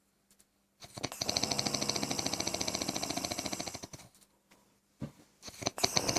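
Loud snoring with a rapid fluttering rattle: one snore lasts about three seconds, then there is a pause of about two seconds before the next snore starts near the end.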